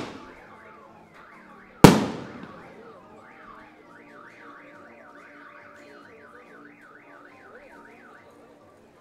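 A single loud thunder-bomb blast about two seconds in, echoing and fading slowly. Under it a car alarm wails in rapid up-and-down sweeps, stopping near the end.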